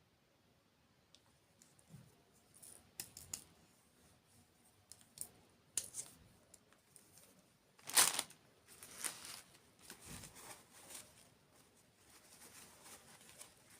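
Close-miked ASMR eating sounds of desserts: scattered short clicks, crackles and crunches, the loudest a crackly crunch about eight seconds in.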